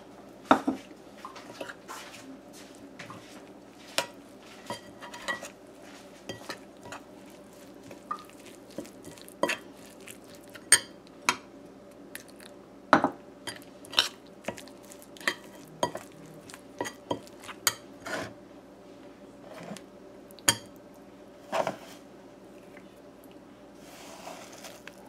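Metal spoon clinking and scraping against a ceramic bowl while stirring curry powder and water into a thick paste, in irregular knocks a second or so apart, over a faint steady hum.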